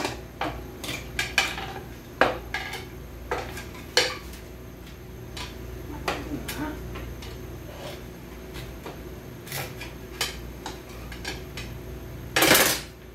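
Metal hand tools clicking and clinking against a snap ring and the steel parts inside a Lexus LS 460's 8-speed automatic transmission as the stiff snap ring is worked out, with a louder half-second clatter near the end.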